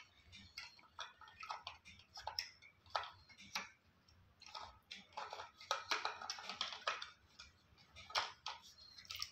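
Rubber-band propeller of a plastic-bottle model boat being wound by hand: faint irregular clicks and ticks from the stick and plastic bottle as the band is twisted up, a few a second.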